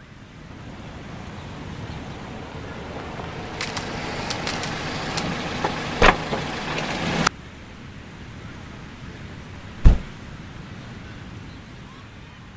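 Car and street noise swells in and grows louder with a few sharp clicks, then cuts off suddenly about halfway through to a quieter steady background. Later a car door shuts with one heavy thump.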